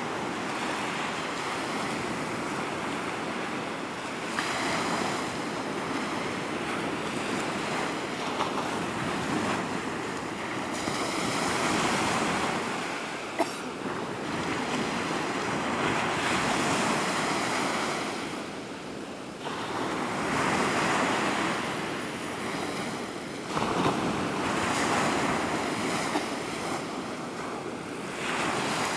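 Surf breaking on the shore, the wash rising and falling in surges every few seconds.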